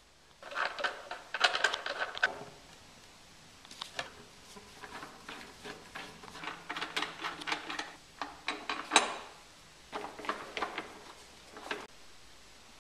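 Handling noise from assembling a cat tree: sisal-rope posts twisted onto their threaded fittings and plush-covered parts fitted together, making bursts of creaking squeaks, scraping and small clicks and knocks with short pauses between.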